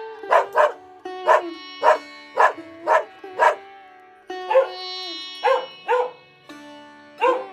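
A dog barking: about eleven short, sharp barks, several about half a second apart, with a short gap around four seconds in. Plucked-string background music plays underneath.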